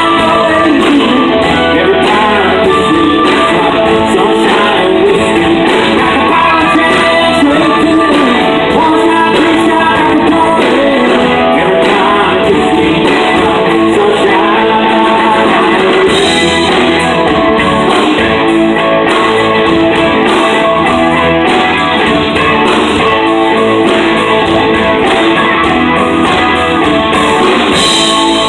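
Live country-rock band playing a song, with strummed electric guitar prominent.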